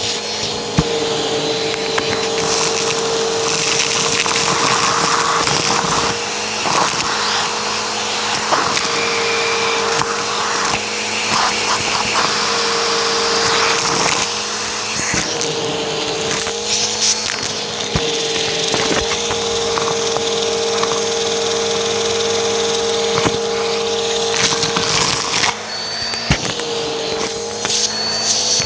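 Vacuum cleaner running steadily through a hose with a narrow nozzle, sucking up a pile of small dry debris that crackles and rattles up the hose. The motor's tone dips briefly several times.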